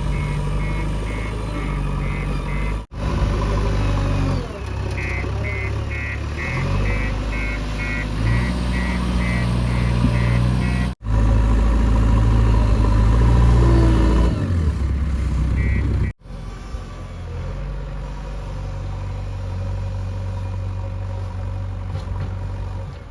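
Diesel engines of a JCB 3DX backhoe loader and tipper trucks running under load, their pitch rising and falling as they rev. A reversing alarm beeps about two to three times a second at the start and again for several seconds in the middle. The sound cuts out abruptly three times.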